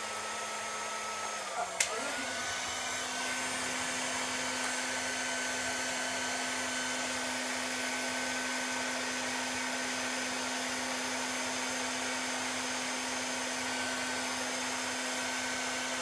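Handheld hairdryer running steadily, its motor hum and whine over the rush of blown air. About two seconds in there is a click and the motor's pitch dips briefly, then it settles a little higher and runs on evenly.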